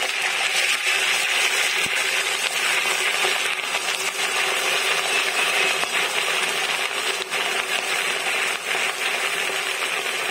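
Chicken pieces sizzling in hot oil with whole spices in a large metal pot: a steady frying hiss with scattered crackles.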